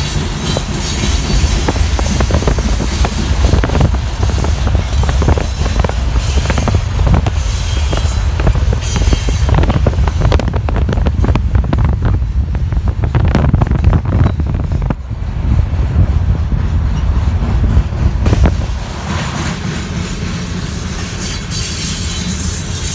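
CSX freight train of covered hopper cars rolling past close by: a loud, steady low rumble with many rail-joint clicks and clanks from the wheels. The sound turns softer and steadier for the last few seconds.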